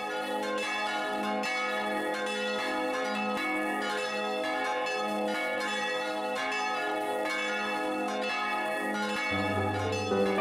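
Church bells pealing in a steady rhythm of strokes, heard close up inside the belfry. Piano music comes in near the end.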